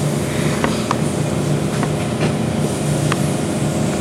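Steady hum of a fan or air-conditioning unit, with a few faint light clicks of small parts being handled spread through it.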